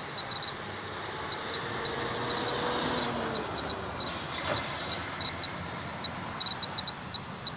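Steady noise of traffic passing on nearby roads, with one vehicle swelling past about four seconds in. Short high pips come at irregular intervals, sometimes several a second.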